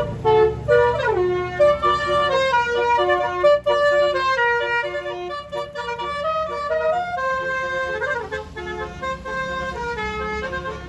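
Angkot minibus's telolet horn, a set of tuned air horns, playing a melody of held reedy notes with a falling slide about a second in, over the low rumble of the vehicle.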